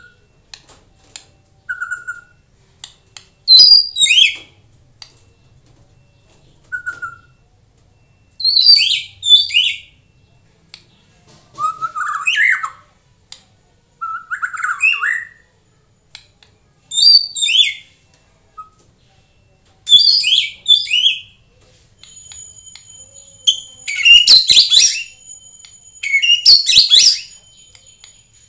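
White-rumped shama singing in short phrases every two to three seconds: clear rising whistles alternating with dense, high chattering bursts. From about two thirds of the way in, a thin steady high tone runs beneath the song.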